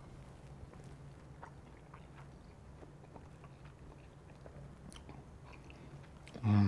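A person quietly chewing a mouthful of soft pastelón (sweet-plantain, ground-beef and cheese casserole), with faint small clicks and mouth sounds. Near the end a brief, louder vocal hum from the eater.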